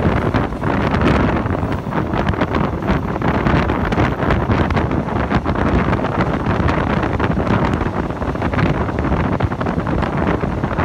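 Wind buffeting the microphone at a moving train's open window, in loud uneven gusts over the steady running noise of the train.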